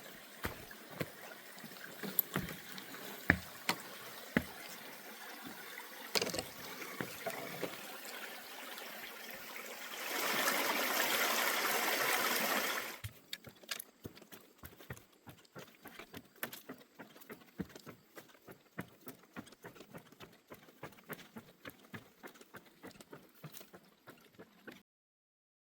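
Footsteps on a trail, a steady run of sharp clicks over a low hiss, with a louder rushing hiss for about three seconds partway through. The sound cuts off abruptly near the end.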